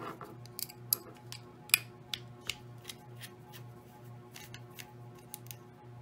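Sharp irregular clicks and taps from handling the small metal-cased DJI Air Unit and a hex driver, loudest in the first two seconds, over background music with a pulsing low beat.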